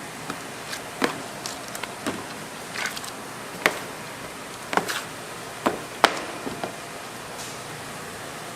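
Kitchen work at a pizza counter: irregular light knocks and clicks of utensils and food being handled, about a dozen, the sharpest about four and six seconds in, over a steady background hiss.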